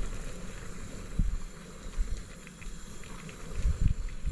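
Steak sizzling in a skillet on a portable gas stove, a fine crackle under wind gusting on the microphone.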